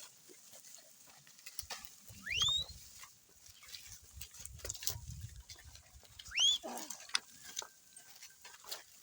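An animal calling twice, about four seconds apart, each a short call sweeping sharply upward in pitch.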